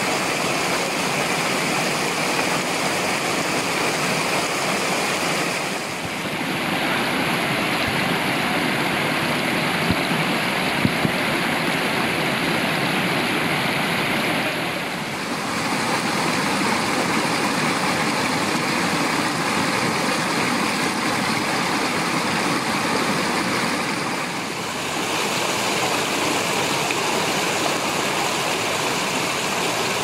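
Shallow rocky stream and small cascades rushing steadily. The sound dips briefly three times and shifts a little in character after each dip.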